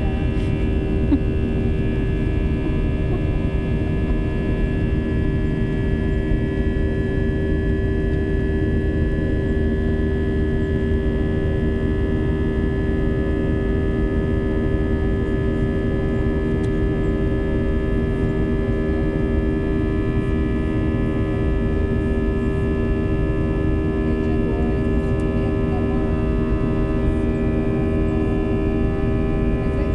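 Airbus A319 jet engines heard inside the cabin during takeoff: a loud, steady drone with several steady humming tones over it. The engine is vibrating and making an unusually loud noise, which frightened those on board.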